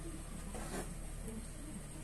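Quiet room tone: a steady low hum and hiss, with a faint brief rustle just under a second in.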